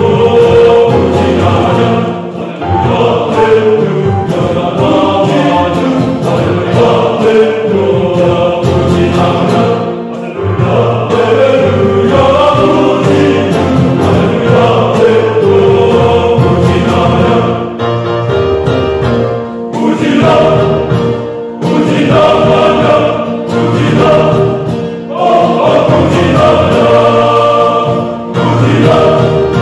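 Male choir singing a hymn in several voice parts, in phrases with short breaks between them.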